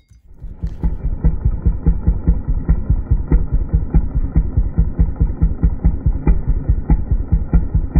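Vintage Homelite chainsaw's two-stroke engine idling with a rapid, even pulsing beat. It fades in about half a second in.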